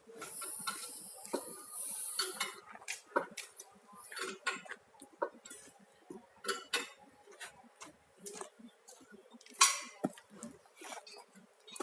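Irregular metallic clinks and knocks of tools and parts being handled, with a high hiss in the first two seconds or so.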